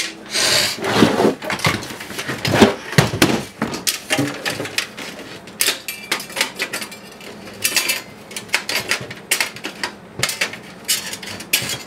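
An open steel desktop PC case being handled: a scraping shift of the case in the first second, then a run of irregular clicks, knocks and rattles of metal and plastic as hands work among the cables and parts inside it.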